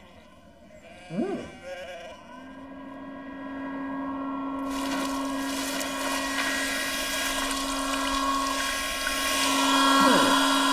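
A hair dryer switches on a couple of seconds in and runs steadily: a motor hum with a rush of air that grows much louder about five seconds in.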